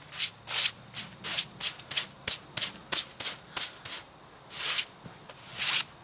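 Broom bristles swishing sawdust off a freshly sawn sweet gum cant: quick strokes, about three a second, then two longer, slower sweeps near the end.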